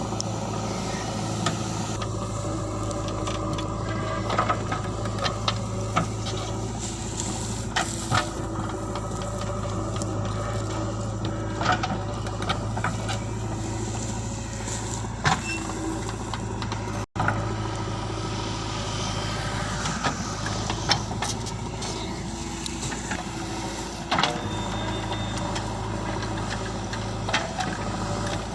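JCB 3DX backhoe loader's diesel engine running steadily while digging, with scattered sharp clanks and knocks from the working arm and bucket.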